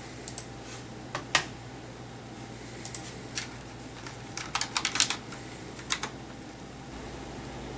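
Irregular sharp clicks and taps in short clusters, like keys being struck, over a steady low hum.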